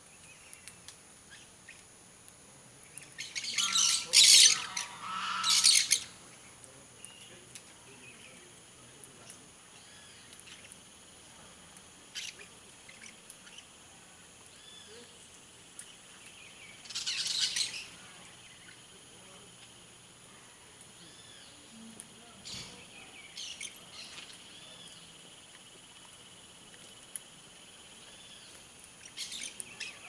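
Blaze-winged parakeets giving short bursts of harsh, grating screeches: two close together a few seconds in, another about halfway through and a fainter one at the end, over a faint steady high hum.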